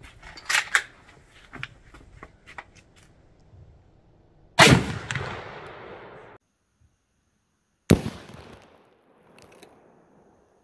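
A 6.5×55 Swedish M96 Mauser bolt-action rifle: a few clicks as the rifle is handled and readied, then two sharp shots about three seconds apart, each followed by a short echoing tail.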